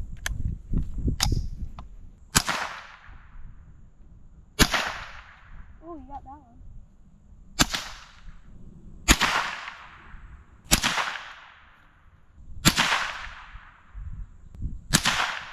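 A .22 rifle fired seven single shots, one every couple of seconds, each sharp crack trailing off in an echo, preceded by a few light clicks near the start. It is being test-fired after being taken apart and cleaned because it had been giving trouble.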